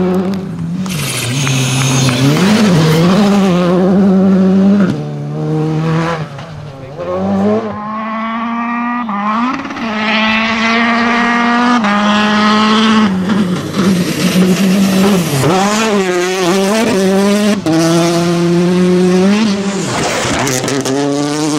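Rally cars at full throttle on a gravel stage, engines revving up and dropping sharply again and again through gear changes and lifts for corners. Several cars are heard in turn, with gravel hiss under the engines.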